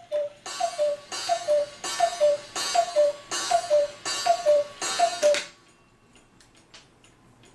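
Pre-World War I cuckoo clock calling the hour: about eight falling two-note cuckoo calls, evenly spaced and each with the hiss of the bellows, stopping about five seconds in. After that only the faint ticking of the movement is left.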